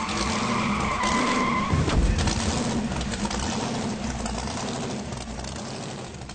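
Car-style sound effect under a logo sting: a screeching whine for the first two seconds, a heavy thump about two seconds in, then a rushing noise that fades away near the end.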